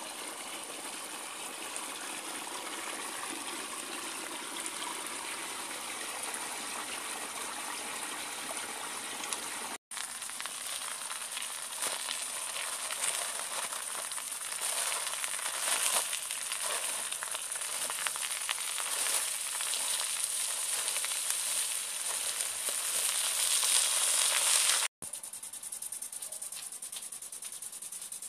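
Steady trickle of water in a small garden stream. After a cut, a louder hiss with crackling that grows stronger: potatoes sizzling on foil over a fire. After another cut, a quieter steady hiss.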